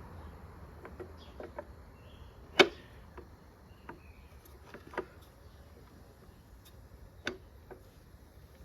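Scattered light clicks and knocks of metal parts and hand tools being handled at a workbench, with one sharper knock about two and a half seconds in and two smaller ones later.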